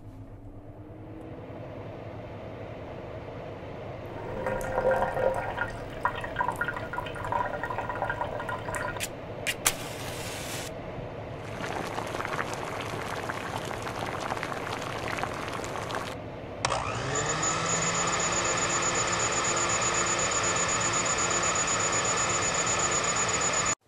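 Stovetop kettle heating with a growing hiss, then water bubbling inside it. About two-thirds of the way through it starts whistling at the boil, a steady shrill whistle that cuts off suddenly at the end.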